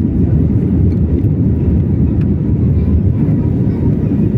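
Airliner cabin noise heard by a passenger: a loud, steady low rumble from the engines and airframe as the plane taxis or starts its takeoff.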